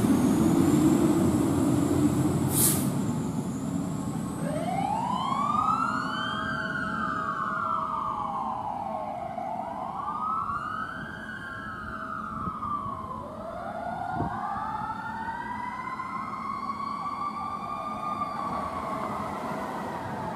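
A fire engine's diesel engine pulls away under load, with a short hiss about two seconds in. Then a siren wails, rising and falling slowly every four to five seconds, and a second siren joins it about halfway through.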